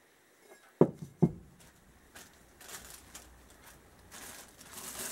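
Two sharp metal clunks about a second in as a motorcycle rear sprocket and its carrier are set down on a workbench, each with a short ring, then the rustle of parts being handled on a plastic bag, growing louder near the end.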